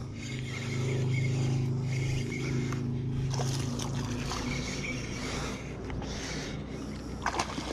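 1000-size Shimano spinning reel cranked steadily, its gears whirring, while a hooked largemouth bass is reeled in. From about three seconds in the whir fades and the fish splashes at the surface in short, irregular bursts.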